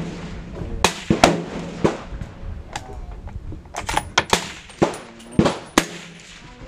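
Gunfire on a shooting range: about a dozen sharp reports at an irregular pace, some only a fraction of a second apart, each with a short ringing tail. Shots this close together come from several guns firing, not one bolt-action rifle.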